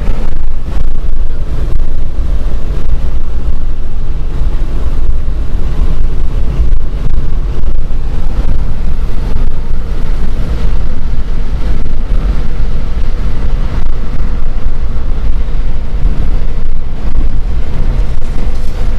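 Loud, steady low rumble of wind buffeting the microphone, with a constant flutter.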